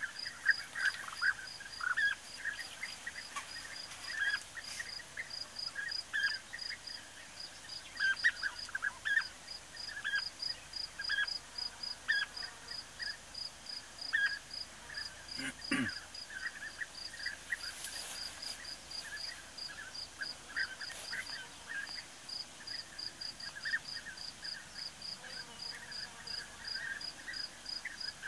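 European bee-eaters calling, short calls coming often and at irregular intervals, over an insect chirping in a fast, even pulse.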